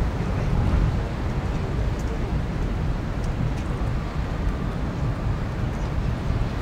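Steady, low outdoor rumble of wind on the microphone mixed with distant traffic.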